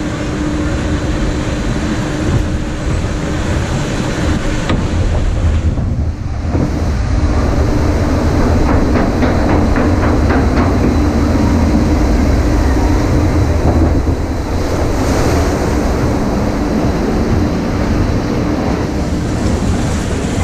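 Log flume boat riding through the ride's covered lift section, heard from aboard: a steady mechanical rumble and hum with rushing water, briefly quieter about six seconds in and then louder.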